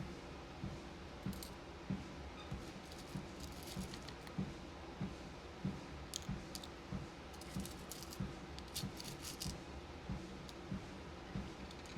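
Footfalls thudding steadily on a walking pad treadmill, about two to three a second, over the treadmill's low running hum. Scattered small clicks and rattles of plastic beads are being handled and sorted, busiest past the middle.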